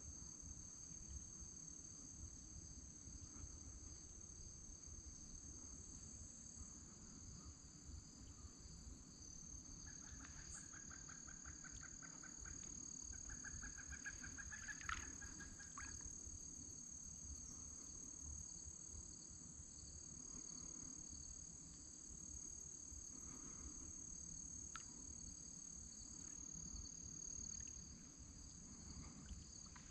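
Steady, faint outdoor chorus of crickets or similar insects trilling high. About ten seconds in, a bird calls with a rapid run of repeated notes for several seconds.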